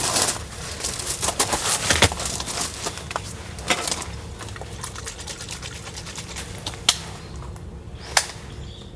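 Rustling and clicking from gear being handled close to the microphone: busy for the first few seconds, then quieter, with two single sharp clicks near the end.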